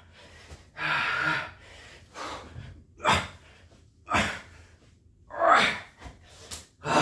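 Man breathing hard and gasping while doing burpees late in a long workout: a string of heavy breaths, roughly one a second, the loudest a voiced exhale about five and a half seconds in.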